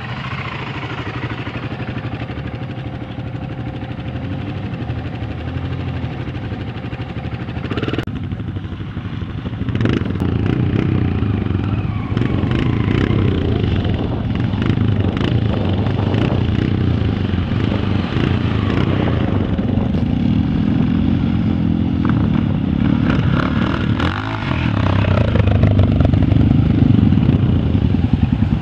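Engines of quad bikes and large off-road motorcycles running as they pass and churn through a muddy track, the engine note rising and falling with the throttle. It grows louder from about ten seconds in as the bikes come close, with scattered clatter.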